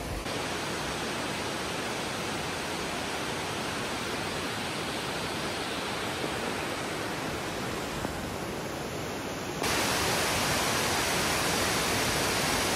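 Steady rushing of a large waterfall cascade, an even noise with no pitch, which jumps suddenly louder and brighter about ten seconds in.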